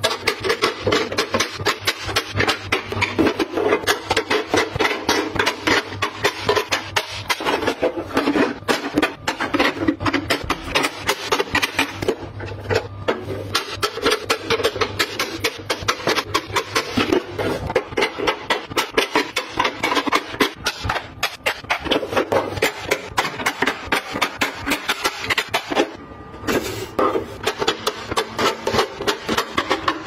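Plastic lipstick and lip-gloss tubes clicking and clacking against one another and against a clear acrylic drawer as they are set into rows, a dense run of light taps.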